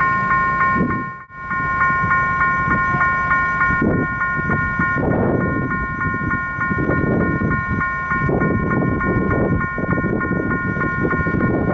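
Level-crossing warning bell ringing a steady electronic chime of several tones at once, pulsing a few times a second, with a brief dropout about a second in. Under it, the low rumble of the approaching train, led by a GT22 diesel-electric locomotive, swells from about four seconds on.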